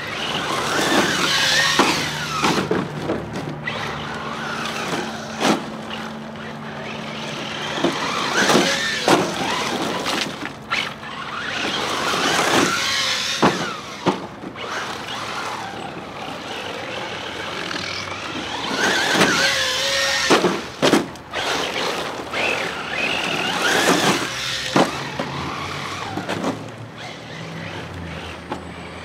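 Thunder Tiger ER4 G3 1/8-scale RC rally car driving on loose dirt: its motor whine rises and falls with the throttle over tyres scrabbling in the dirt, broken by many short sharp knocks from the car landing and bouncing over the bumps.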